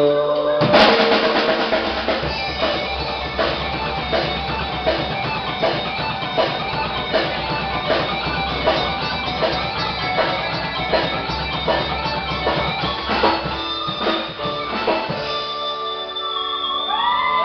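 Live rock band playing an instrumental passage: a drum kit keeping a steady beat under electric guitar and bass, opening with a loud crash about a second in. Near the end, long held notes ring out and bend in pitch.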